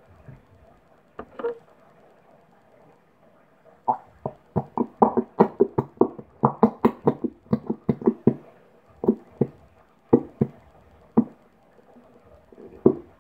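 Clear Elmer's glue bottle squeezed upside down, its nozzle sputtering air and glue out in a quick run of short pitched pops, about four a second, then a few more spaced out near the end, as the last of the glue is squeezed out.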